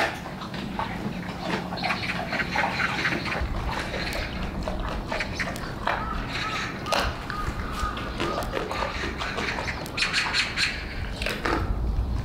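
Brown bear chewing a raw chicken, crunching through it in many quick, irregular crunches and clicks.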